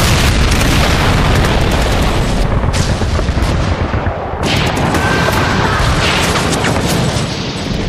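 Battle sound effects: dense, continuous gunfire with machine-gun fire and heavy explosion booms, starting abruptly.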